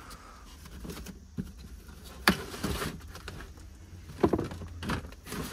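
Cardboard boxes being grabbed and shifted among clutter: rustling and scraping with several sharp knocks, the sharpest a little over two seconds in.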